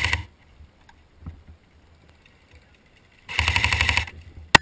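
Airsoft gun firing full-auto: the end of one burst at the start, then a burst of about ten rapid shots lasting under a second, about three seconds in. A single sharp crack follows near the end.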